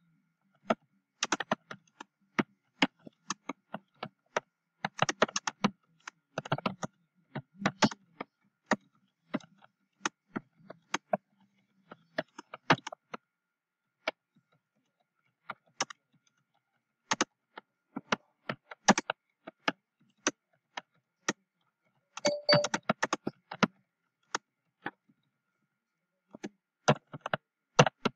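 Typing on a computer keyboard: quick, irregular runs of key clicks with brief pauses between words and phrases.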